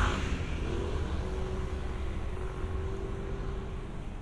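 Road traffic on a busy city avenue, a car passing close right at the start and fading away over a steady low rumble of traffic and wind on the microphone, with a faint hum in the middle.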